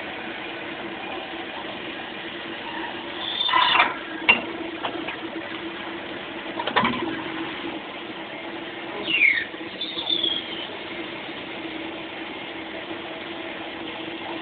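Cam-type automatic lathe running through its turning cycle: a steady hum with a constant tone. Short squeals come about 4 s and 9–10 s in, the one near 9 s falling in pitch, with a sharp knock around 7 s.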